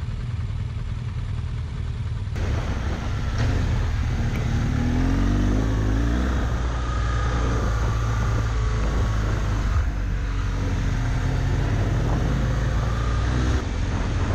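Motorcycle engine running while riding a dirt trail, with a heavy low rumble. The sound changes abruptly about two seconds in, and the engine note rises about four to six seconds in.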